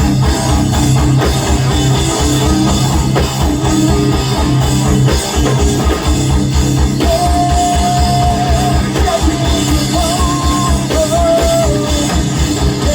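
Live heavy rock band playing a riff together: chugging low guitars and bass with drums in a fast pulsing rhythm. A higher melodic line with bends enters about seven seconds in.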